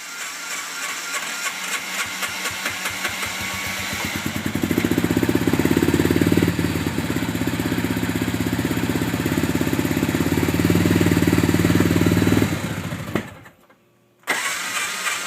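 Polaris RZR side-by-side engine turning over with an even pulsing, then catching and running louder for about eight seconds before dying away. About a second before the end it starts turning over again. The machine is hard to start and won't stay running.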